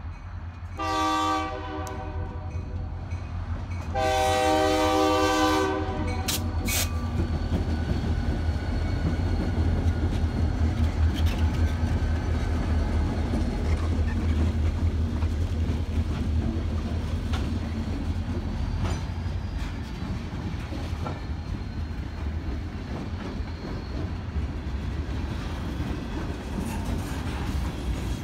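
Diesel freight locomotives sound a multi-note air horn twice, a short blast about a second in and a longer one about four seconds in, as they approach the crossing. The lead units then pass close by with a deep engine rumble, followed by freight cars rolling past with their wheels clicking on the rails.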